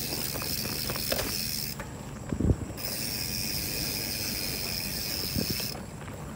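Trek mountain bike rolling fast down a dirt trail: the rear freewheel hub ticks while coasting and the chain and frame rattle over the rough ground. A heavy thump comes about two and a half seconds in, and another near the end, as the bike hits bumps.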